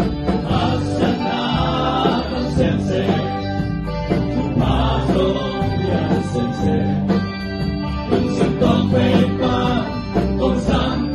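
Several men singing a song together into microphones, amplified, with band accompaniment including electric guitar.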